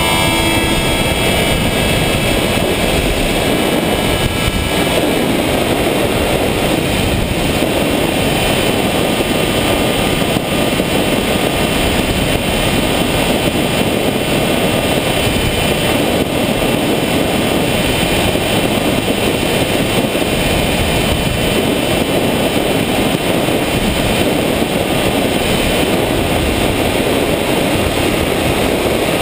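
RC airplane's onboard camera picking up a loud, steady rush of wind and propeller motor noise in flight. A thin whining tone fades about a second in.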